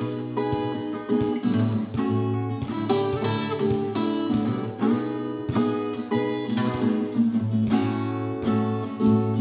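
Acoustic guitars strumming an instrumental song intro in a steady rhythm, with held low bass notes underneath.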